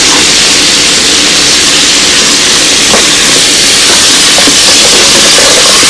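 Sliced tomatoes, peppers and meat sizzling in a hot pot: a loud, steady hiss, with a couple of faint clicks.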